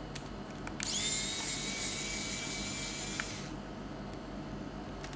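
A small high-speed electric hand tool's motor whines steadily at a high pitch. It starts about a second in and stops after about two and a half seconds.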